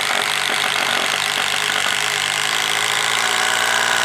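Milwaukee cordless impact driver drilling a 3/8-inch bit down through 2x4 lumber, running steadily under load with its impact mechanism hammering, then stopping suddenly at the end.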